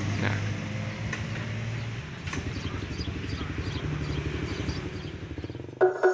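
An engine idling with a steady low throb, a few light clinks of tools over it. Background music comes in just before the end.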